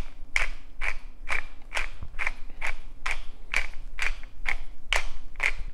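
Wooden pepper mill grinding black peppercorns: a crunchy grinding stroke with each twist, repeating evenly about twice a second.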